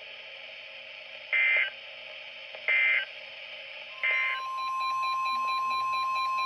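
NOAA Weather Radio digital signalling: three short, evenly spaced bursts of SAME data tones, the end-of-message code after a tornado warning. About four seconds in, the steady 1050 Hz weather-radio warning alarm tone starts and holds.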